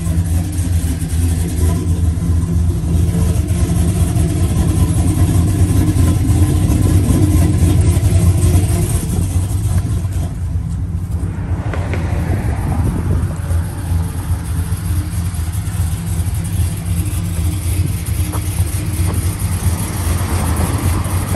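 Twin-turbocharged Chevrolet Silverado Z71 truck engine running with a steady low note, louder over the first eight seconds or so and settling a little quieter after about ten seconds.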